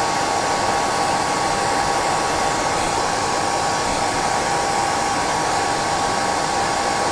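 Handheld hair dryer running steadily, a constant rush of blown air with a faint steady whine, blowing hot air over a deer-hair fly head to tighten the trimmed hair.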